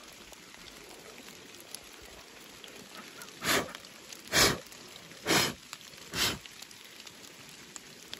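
Light rain falling steadily on the garden. Halfway through, four loud short rustles come about a second apart.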